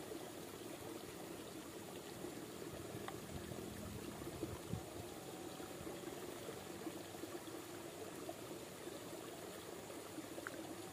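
Liquid poured from a bottle into the plastic tank of a knapsack sprayer: a faint, steady trickle.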